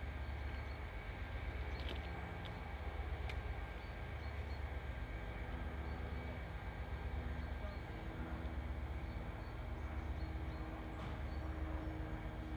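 Class 57 diesel locomotives' EMD 645 V12 engines idling in the distance: a steady low rumble with faint hums, and a new hum joining about two-thirds of the way through.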